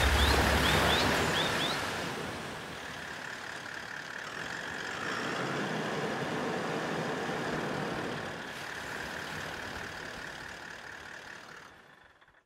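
A steady rushing noise that swells a little in the middle and fades out to silence near the end. A few short, high rising chirps come in the first two seconds.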